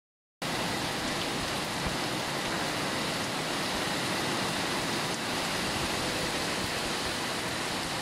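Strong wind and driving rain of a tropical storm, a steady, dense rushing hiss.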